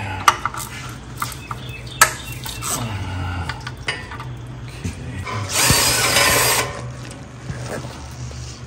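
Quarter-inch drive hand ratchet working transmission pan bolts loose. There are scattered sharp clicks, then about five and a half seconds in a rapid run of ratcheting that lasts about a second.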